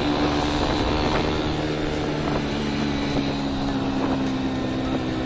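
Motorcycle engine running steadily while riding, heard from a helmet-mounted camera, its pitch easing slightly down.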